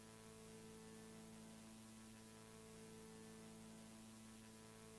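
Near silence with a faint, steady low hum made of several even tones.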